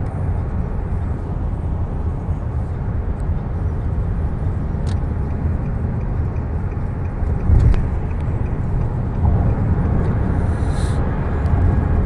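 Steady low rumble inside a car cabin, with a few faint clicks and a brief louder low thump about seven and a half seconds in.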